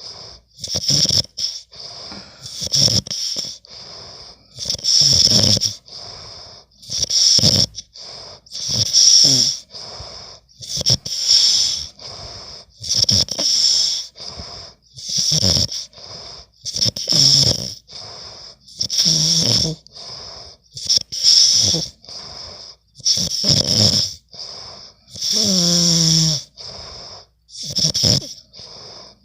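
A man snoring loudly in his sleep, breath after breath, often in in-and-out pairs about every two seconds. Each breath carries a high hissing whistle over a low rattle. About 25 seconds in comes one longer snore with a falling, groaning pitch.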